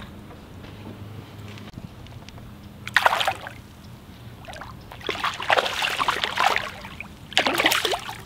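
A hooked slab crappie thrashing and splashing at the water's surface as it is pulled out by a log. There is a short splash about three seconds in, then repeated splashing over the last three seconds, loudest near the end.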